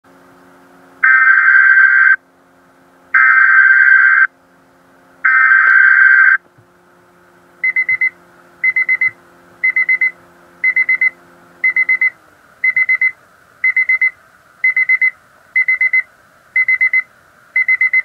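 Emergency alert data header: three harsh, buzzy data bursts about a second long, two seconds apart, which carry the coded warning. They are followed by a weather alert receiver's alarm, a cluster of quick high beeps repeating about once a second.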